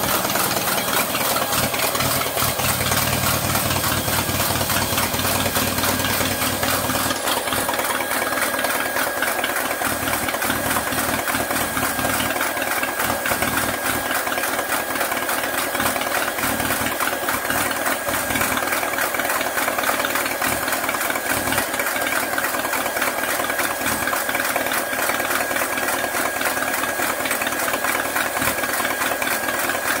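Small gasoline engine running steadily on a homemade bandsaw sawmill during a test run with no log in it, with a steady high whine over the engine. The deep rumble thins out about seven seconds in.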